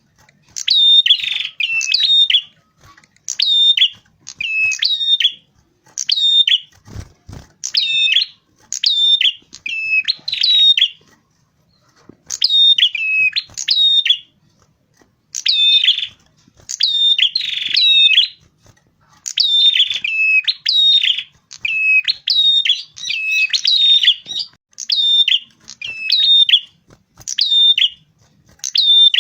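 Prenjak kepala merah, a small Indonesian warbler, singing: short high phrases of quick stepped notes repeated about once a second, with brief gaps between runs. A brief low thump about seven seconds in.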